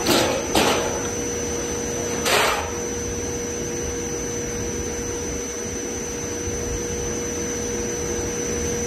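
MultiCam 5000-series CNC router running: a steady rushing hum with a constant whine from the spindle and its dust extraction. Three short, loud rushes come in the first three seconds.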